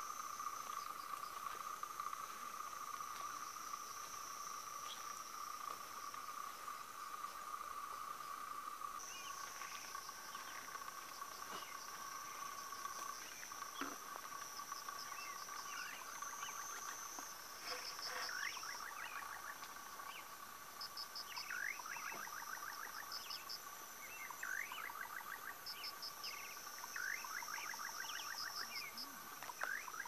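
Dusk chorus of caatinga insects: steady, high-pitched cricket-like trilling at two pitches, with short pulsed chirps. From about ten seconds in, many short rising calls of other night animals join.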